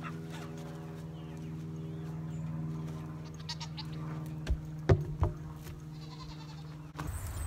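A heavy old wooden post thrown down, landing with three knocks about halfway through, while goats bleat. A steady low hum runs underneath and stops near the end.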